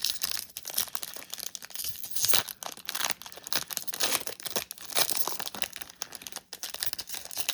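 Crinkling and tearing of a trading-card pack wrapper as a Topps Chrome baseball pack is ripped open, an irregular run of crackles and sharp rips throughout.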